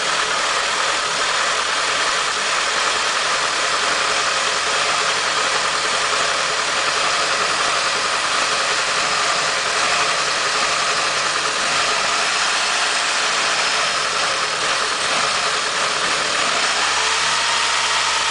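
2001 Mitsubishi Galant engine running steadily, held so that its intermittent misfire or stumble can be heard, a fault the owner traces to a counterfeit camshaft position sensor. The engine note shifts slightly near the end.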